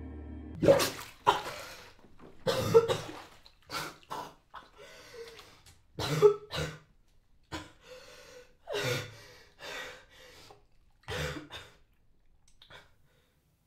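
A young woman coughing and gasping for breath after coming up from under bathwater, with harsh coughs about once a second that thin out near the end. A low music drone cuts off about half a second in.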